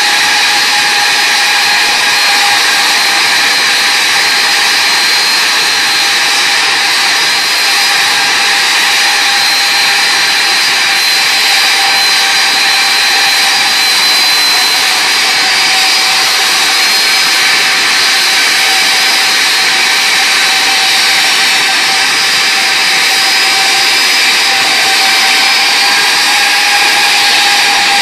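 Rolls-Royce RB211-524GT turbofan on a Boeing 747-400 running at high power in a ground engine run for an air-flow test. The sound is a loud, steady rushing noise with a high, steady whine over it.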